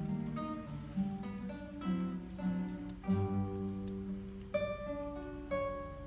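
Solo classical guitar played fingerstyle: a melody of single plucked notes over bass notes, each note left to ring on. A low bass note sounds about three seconds in, and higher, brighter notes are plucked near the end.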